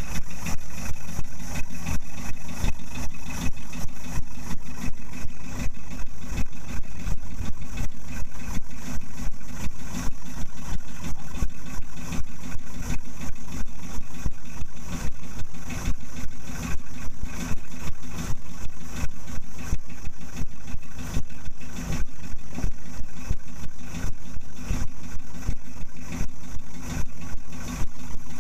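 A fishing boat's inboard engine idling steadily, a fast, even low thudding that doesn't change.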